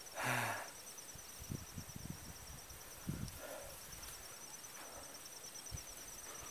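Insects trilling steadily in the grass, a fast pulsing high note. A short voice sound comes about a quarter second in, and soft low thumps of footsteps are scattered through.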